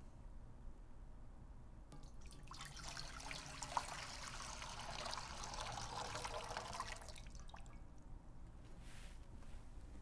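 Water poured from a glass pitcher into a shallow bowl: a quiet splashing trickle that starts about two and a half seconds in and stops about seven seconds in, with one brief tick near four seconds in.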